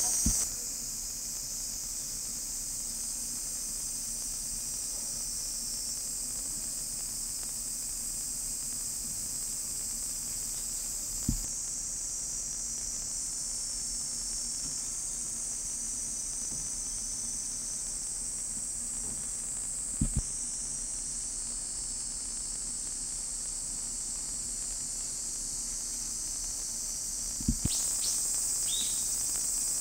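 Steady high-pitched chorus of insects, broken by a few short clicks where the background level shifts.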